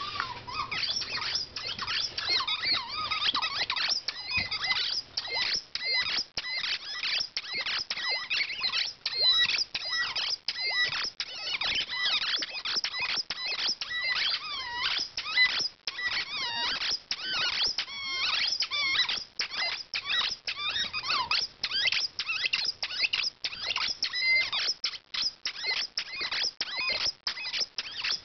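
Continuous high-pitched squeaking: rapid runs of short squeaks that swoop up and down in pitch, several a second, with brief gaps between runs.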